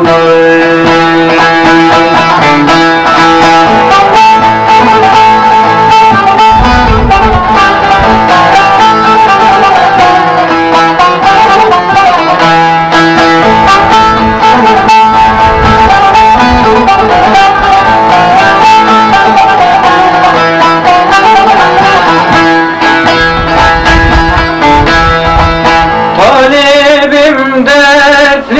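Bağlama (long-necked Turkish saz) played alone in an instrumental passage between sung verses, many plucked notes ringing over held low strings. A man's singing voice comes back in near the end.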